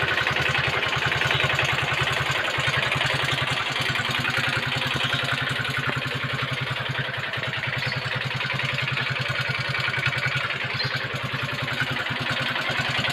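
Yamaha Mio scooter's small single-cylinder engine idling steadily with a fast, harsh ticking clatter. This is the 'ngelitik' knock that the mechanic suspects comes from a worn cylinder block and piston.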